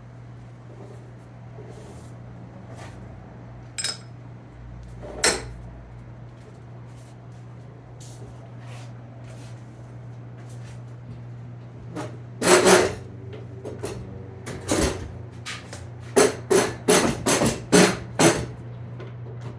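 Sharp metal knocks and taps as the hub is worked into the wheel bearing in a steering knuckle: a few single knocks, then a quick run of about seven strikes near the end. A steady low hum runs underneath.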